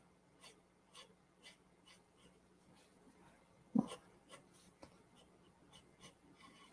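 Pencil hatching on drawing paper: short, quick scratching strokes, about two a second. About four seconds in there is a single brief, duller and louder sound, a soft knock.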